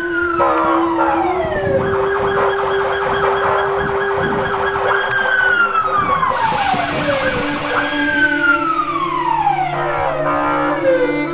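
A siren-like wail that jumps up and slides slowly back down, three times about three seconds apart, over a steady drone and a dense rhythmic music backing.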